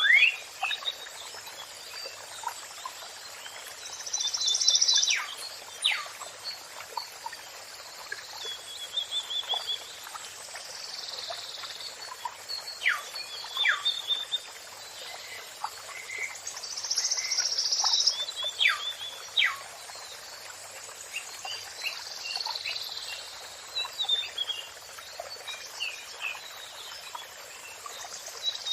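Songbirds singing and calling: rapid high trills, quick whistled upward and downward sweeps, and short harsh chattering bursts every few seconds, over a steady background hiss.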